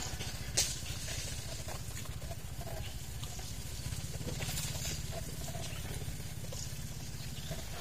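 Steady low rumble of a running engine, with one sharp click about half a second in.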